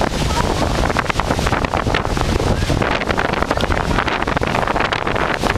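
Strong storm wind blowing hard across the microphone: a loud, dense rushing with constant buffeting and many short crackles.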